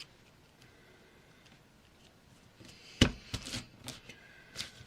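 Low room tone, then a sharp knock about three seconds in as something is set down on the work surface, followed by several light clicks and crinkles of paper and sticky tape being handled.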